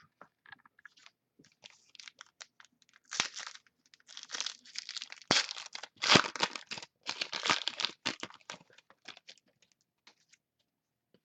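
Plastic foil wrapper of a football trading-card pack being torn open and crinkled, in several scratchy bursts between about three and eight seconds in, with small handling clicks around them.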